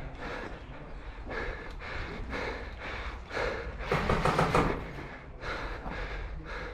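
Footsteps crunching on a debris-strewn concrete floor at a walking pace, about two steps a second, with a louder scuffing stretch about four seconds in.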